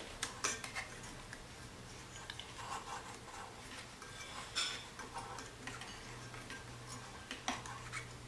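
Irregular light metallic clicks and knocks from a Bell & Howell 16mm projector's mechanism being worked by hand, the film fed through its sprockets. A faint steady low hum runs underneath.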